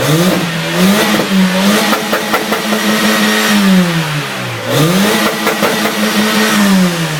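Citroen C2's custom exhaust as the engine is revved up and held at high revs twice, dropping back briefly about four and a half seconds in before the second rev, then falling off near the end.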